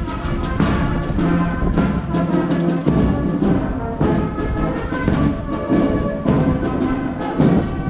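Brass band playing a dance tune, with sustained brass notes over a steady drum beat.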